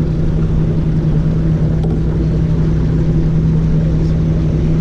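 Boat motor running steadily: a constant low hum over a rumble.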